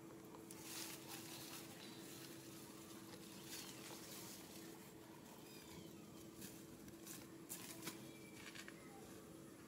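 Quiet ambience: a steady low hum with scattered soft clicks and a few faint, short high chirps.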